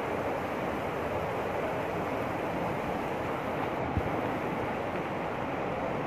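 Steady rushing of a waterfall and a swollen, fast stream churning over rocks.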